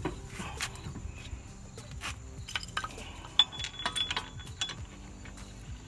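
Light metallic clinks and taps of a rear wheel hub mounting bolt being started by hand and worked against the steel hub and knuckle, with one sharper clink that rings briefly about three and a half seconds in.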